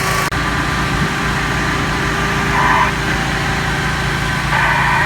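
Heavy diesel engine of a fire engine running steadily at idle.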